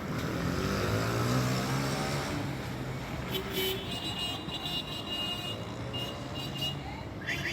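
Street traffic: a motor vehicle's engine rising and then falling in pitch as it passes, over a steady urban background. Thin high-pitched tones come and go in the second half.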